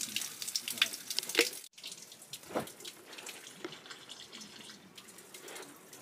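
Spring water pouring from a fountain spout, a steady trickle with sharp splashes and drips. It breaks off for an instant about two seconds in, then runs on a little quieter.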